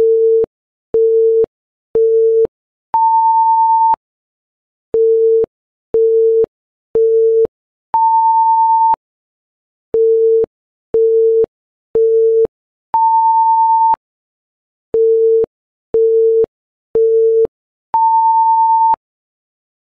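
Electronic countdown timer beeps: three short low beeps a second apart, then one longer, higher beep, with the pattern repeating every five seconds, four times over. Each cycle counts down the four seconds given to guess a puzzle, and the long high beep marks time up.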